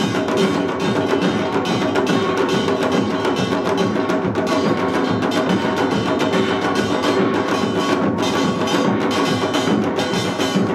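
Korean pungmul ensemble playing an utdari-style rhythm: janggu hourglass drums and buk barrel drums struck in fast, dense patterns, with the ringing clang of small gongs on top and no break.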